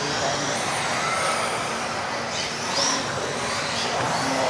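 Several electric RC off-road buggies racing: high-pitched motor whines that rise and fall as the cars accelerate and brake, over a steady rush of drivetrain and tyre noise.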